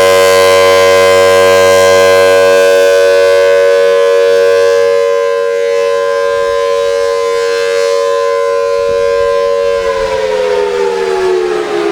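Thunderbolt tornado siren sounding a loud steady tone, then winding down about ten seconds in, its pitch falling steadily.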